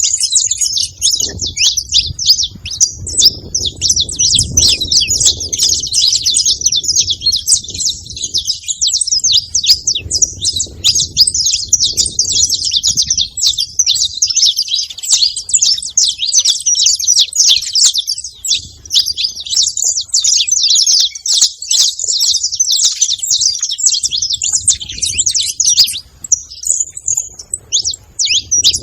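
Saffron finch singing: a dense, unbroken stream of rapid, high chirps and trills.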